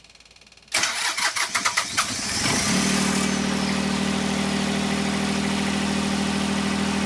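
Westerbeke marine diesel generator cranking briskly for about two seconds, then catching and settling into a steady run. The starting fault was its battery, which tested at only 63 cold cranking amps, so it now starts on a sound battery.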